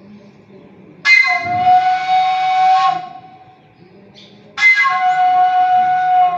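Two long, steady, high whistle-like notes sounded into a PA microphone, each about two seconds long, with a pause of about a second and a half between them.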